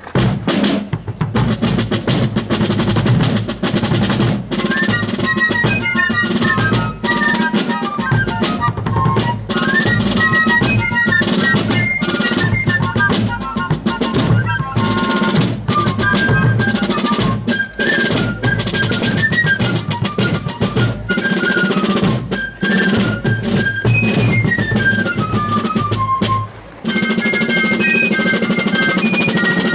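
Fife and drum corps playing: snare drums and a bass drum start a beat, and fifes come in with a high melody about four seconds in. Near the end the music breaks off briefly and a new tune starts.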